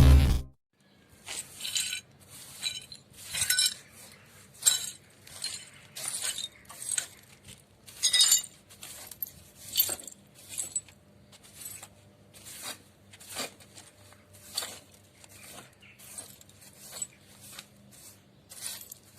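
Shards of shattered glass being cleaned up, clinking and scraping against each other in short, irregular bursts about once or twice a second.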